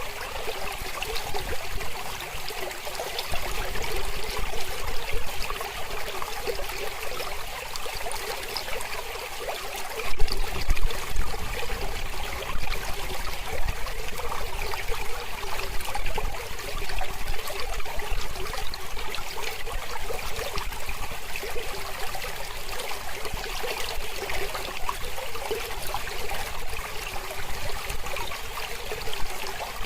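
Mountain river flowing: a steady rush and trickle of water, getting a little louder about ten seconds in.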